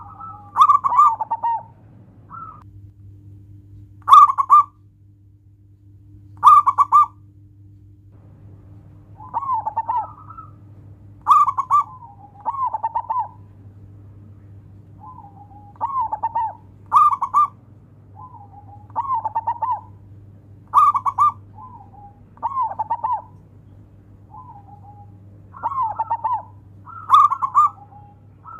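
Zebra dove (perkutut) cooing: short rolling phrases of quick trilled notes, repeated over and over with gaps of one to two seconds.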